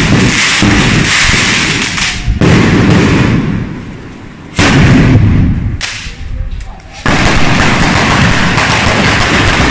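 A street firecracker battery going off: a rapid, continuous string of loud bangs and cracks that eases off twice, a little before halfway and again near two-thirds of the way through, each time starting up loud again suddenly.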